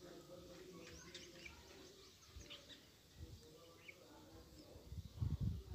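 Faint background birds: scattered short, high chirps over low room noise, with a few low thumps near the end.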